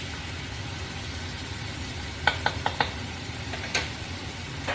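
Frozen stir-fry vegetables sizzling steadily in a hot pan. A quick run of four sharp clicks comes about two seconds in, and one more near four seconds.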